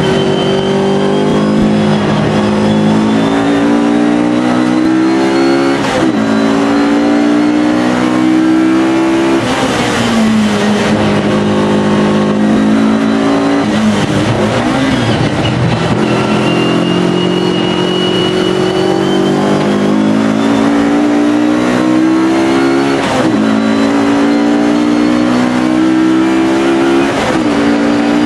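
Alfa Romeo race car engine running hard on track, its pitch rising and stepping through the gears, with sharp dips every few seconds at shifts and braking. A thin high whine rides over it.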